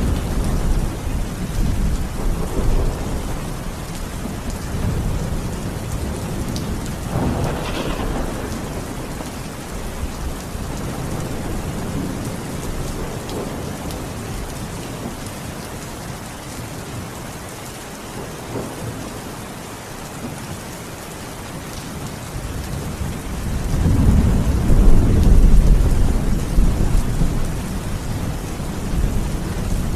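Steady rain falling, with low rolling thunder rumbling under it that fades in the middle and swells loudest near the end.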